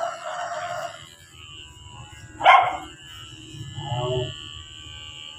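A dog whines, barks sharply once about two and a half seconds in, and gives a shorter whine near four seconds. Under it runs the low steady buzz of electric pet hair clippers shearing matted fur.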